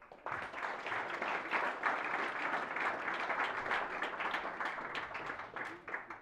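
Audience applauding: a dense round of clapping that starts suddenly and dies away near the end.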